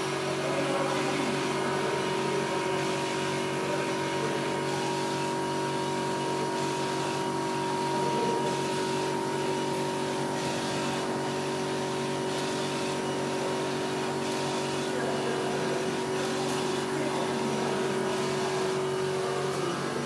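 Large-format flatbed inkjet printer running, its print-head carriage shuttling back and forth over the cards: a steady machine hum with a faint hiss that pulses about once a second as the carriage passes.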